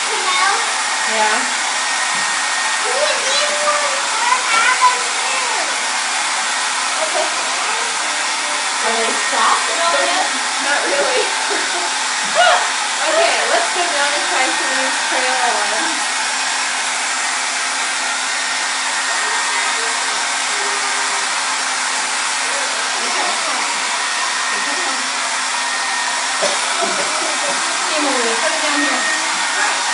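Handheld hair dryer running steadily, blowing hot air with an even rushing hiss and a low hum.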